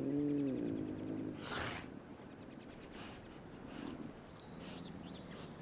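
Mountain lion's wavering growl for about a second and a half, then a short breathy hiss, over crickets chirping steadily.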